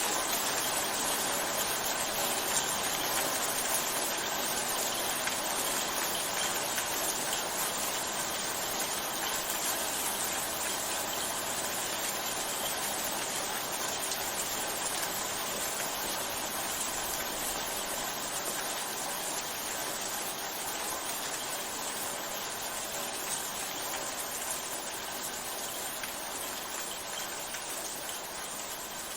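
Waterfall: a steady, even rush of falling water, growing slightly quieter towards the end.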